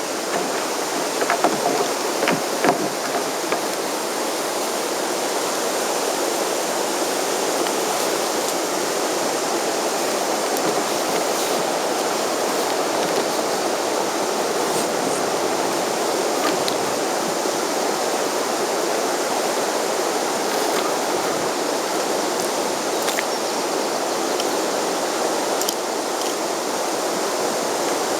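Steady rushing of flowing river water, with a few small clicks and knocks in the first few seconds as the rope and fittings are handled.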